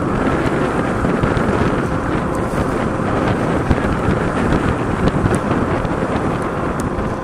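Steady wind rushing over the microphone of a rider on a Bezior S1 electric scooter at speed, with the scooter's motor making little sound of its own under the wind.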